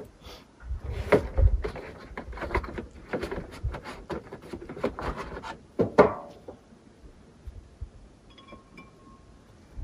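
Irregular knocking and clattering of hard objects, loudest about six seconds in, dying away soon after; a faint short tone sounds near the end.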